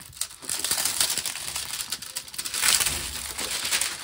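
Clear plastic protective film on a diamond-painting canvas crinkling and rustling as hands smooth it flat, starting about half a second in.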